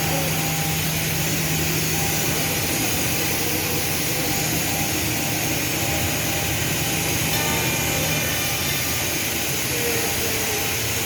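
Morbidelli Author 600 CNC machining center running: a steady machine hiss over a low hum, the hum fading about eight seconds in.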